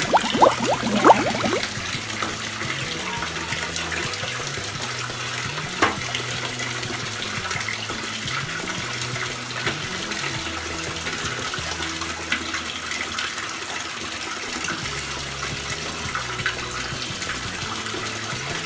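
Bathtub faucet running, a steady stream of water pouring into shallow bathwater.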